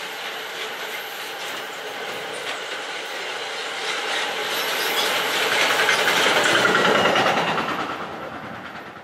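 Freight train of double-deck car-carrier wagons rolling past, its wheels clattering over the track in a rapid, even rhythm. The noise swells to its loudest about two-thirds of the way through, then fades as the end of the train goes by.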